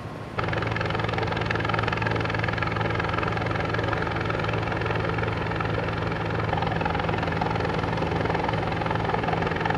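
Helicopter flying overhead: a steady rotor and turbine sound that cuts in abruptly about half a second in and holds even.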